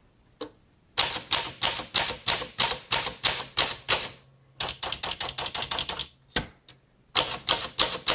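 Keys of a 1936 Smith Corona Standard flat-top manual typewriter being typed, the type bars striking the platen in quick runs of about four to five strokes a second, with two short pauses between runs.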